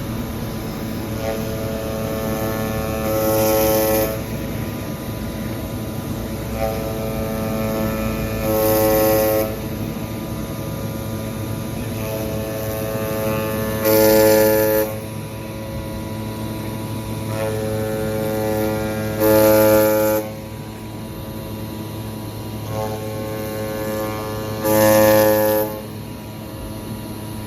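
SUDA CNC router running on foam board, with a steady machine hum. Five times, about every five and a half seconds, a louder, higher-pitched surge lasts about a second.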